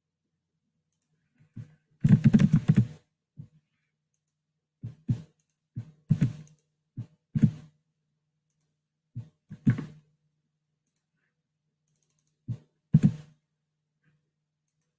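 Computer keyboard keystrokes and mouse clicks: a quick run of keys about two seconds in, then scattered single and paired clicks, over a faint low hum.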